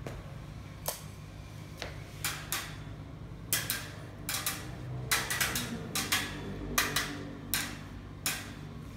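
Caged Fischer's lovebird making a string of short, sharp, clicky sounds, about eighteen, irregularly spaced and thickest in the middle, over a low steady hum.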